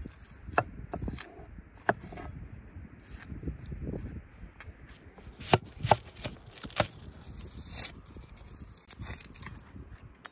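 Kitchen knife peeling the dry, papery skin off an onion in crackly scrapes and tears, then cutting through the onion, with a few sharp knocks of the blade against a wooden cutting board about halfway through.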